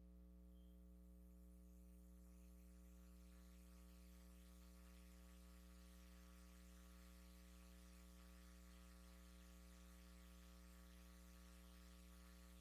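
Near silence: a steady, faint electrical mains hum with light hiss, unchanging throughout.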